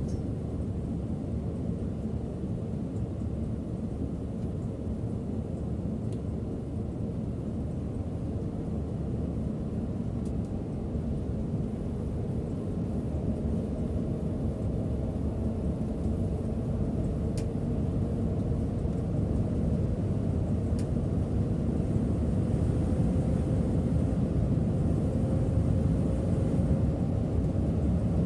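Setra S 531 DT double-decker coach driving, heard from the driver's seat: a steady low rumble of engine and road noise. Over the second half a faint whine rises slowly in pitch and the whole sound grows a little louder.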